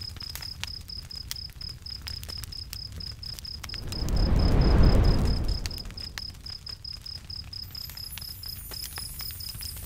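A cricket chirping in a steady rapid pulse over the crackle and pops of a wood bonfire. About four seconds in a low whoosh swells up, is loudest for a moment, and fades away over about two seconds.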